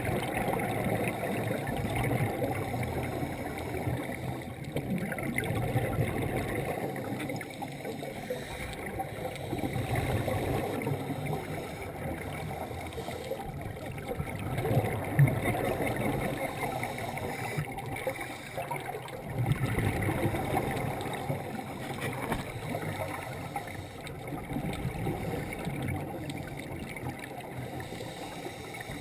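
Underwater recording of a scuba diver's breathing: a steady watery rumble and gurgle, swelling every few seconds as exhaled bubbles burst from the regulator.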